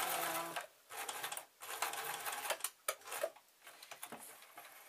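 Frister Rossmann electric sewing machine stitching through leatherette, stopping about half a second in, then run in two short bursts. A few sharp clicks and knocks follow.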